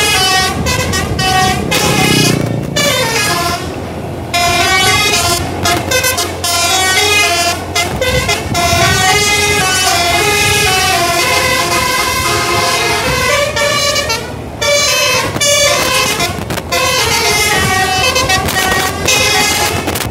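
Bus telolet horn (a basuri multi-tone horn kit) playing a long, loud string of melodies, the pitch stepping up and down from note to note, with a few short breaks between phrases.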